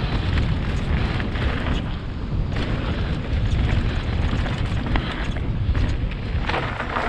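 Mountain bike riding fast down a dirt singletrack. Wind buffets the head-mounted action camera's microphone with a heavy rumble, over tyre noise on the dirt and frequent clicks and knocks from the bike jolting over bumps.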